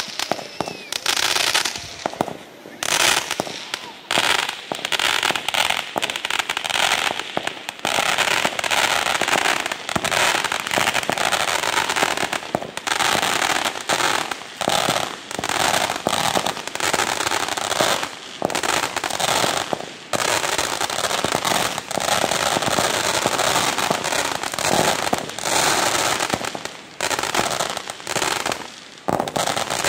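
Fireworks hissing and crackling almost without a break, with many sharp pops.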